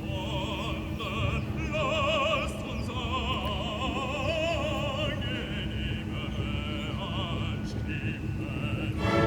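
Music with an operatic singing voice, its pitch wavering in a strong vibrato.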